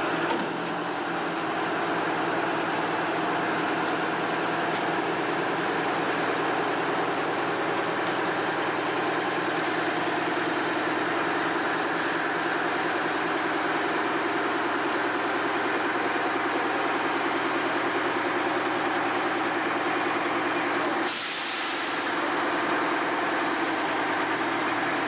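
Heavy engine running steadily, with a short sharp hiss of released air about four seconds before the end.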